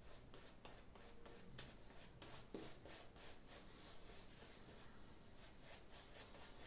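Omega 10065 shaving brush face-lathering soap on the cheeks and jaw: faint, brisk, rhythmic swishing of bristles through lather, about four or five strokes a second.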